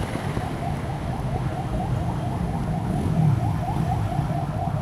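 Heavy rush-hour traffic: a steady low rumble of engines, with a high warbling tone that repeats rapidly, about six times a second, throughout.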